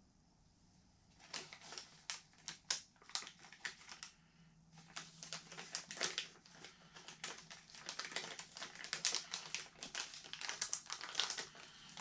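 Plastic packaging crinkling and rustling as it is handled, a dense run of quick, irregular crackles and clicks that starts about a second in.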